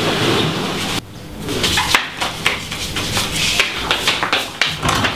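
A steady hiss cuts off about a second in. It is followed by a string of irregular short knocks and taps as a person gets off an examination bed and walks across a hard floor to a door.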